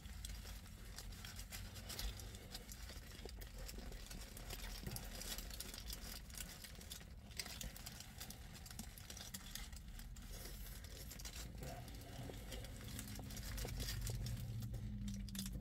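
A person biting into and chewing a fried chicken sandwich, with the paper wrapper crinkling in the hands. The bites, chews and rustles come as many small irregular clicks over a low steady hum.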